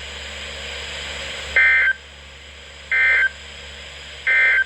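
Emergency Alert System SAME digital data bursts from NOAA Weather Radio: three identical short, shrill warbling bursts, each about a third of a second long and about 1.3 seconds apart, over a steady radio hiss. Their place straight after the spoken warning marks them as the End of Message code that closes the alert.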